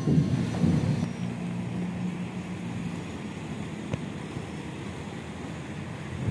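A few low thumps in the first second, then a steady rumble and hiss of wind on the microphone mixed with distant traffic.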